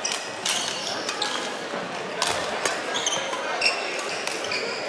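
Badminton rally: a few sharp racket strikes on the shuttlecock, about one every second or two, with short high squeaks of shoes on the wooden court floor, all echoing in a large sports hall.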